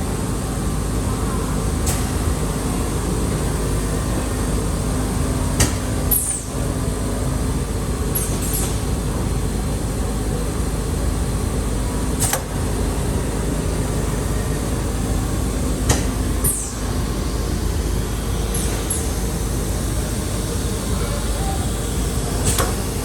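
Screen-printing shop machinery running steadily with a low hum, broken every few seconds by short, sharp hisses.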